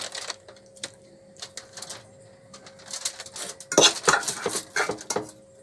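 Kitchen handling sounds as a whole snapper is stuffed with steamed greens on a foil-lined tray: scattered light clicks, then a louder run of clinks and scraping from a utensil about four seconds in.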